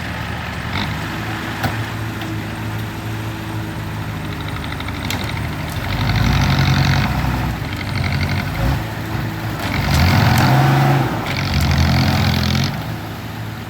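Heavy construction machine's engine running steadily, with three louder surges where it revs up under load, about six, ten and twelve seconds in.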